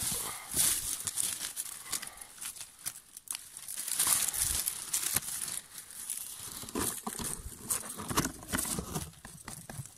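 Dry leaf litter and thin twigs rustling and crackling in irregular snaps as branches are pushed aside by hand.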